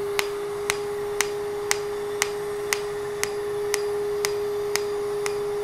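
Asclepion MCL31 Dermablate Er:YAG laser with its fractional handpiece firing a train of pulses, a sharp snap about twice a second, over the laser unit's steady hum.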